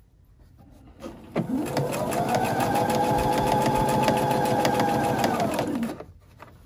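Electric computerized sewing machine stitching a seam. The motor speeds up about a second and a half in, runs steadily with rapid needle strokes, then slows and stops about a second before the end, with a small click just before it starts.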